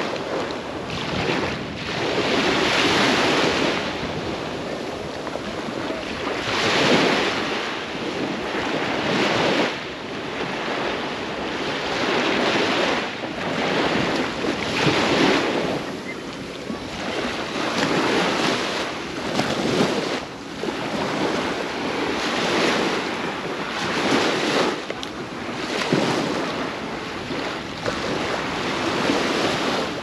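Ocean surf: waves breaking and washing ashore one after another, swelling and fading every two to four seconds.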